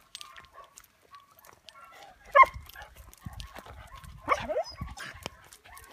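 A dog barking twice, sharply, about two and a half and four and a half seconds in, with soft low thuds of movement between the barks.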